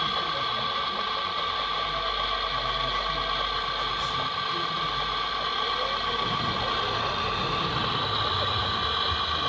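Hydraulic pump of a radio-controlled model excavator running with a steady, high whine while the grapple is worked.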